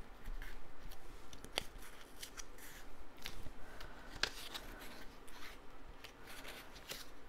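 Cardstock being folded by hand along its score lines and pressed flat: soft rustling and sliding of the paper, with a couple of sharp crackles as folds are creased, about one and a half and four seconds in.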